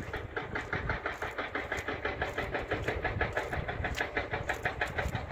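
Engine of construction machinery running steadily with a fast, even pulsing.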